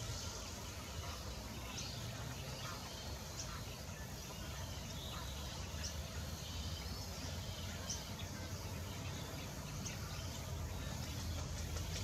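Faint outdoor pond ambience: a steady low rumble with scattered short, high bird chirps every second or two.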